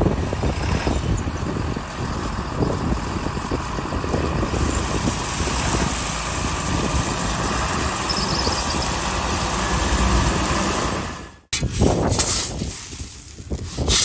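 The diesel engine of a John Deere 6620 combine is running, puffing black exhaust, while the machine sits on a steep lean with a broken axle and is being started to see whether it still makes oil pressure. Near the end the sound cuts off suddenly, and a scoop shovel is heard scraping through shelled corn.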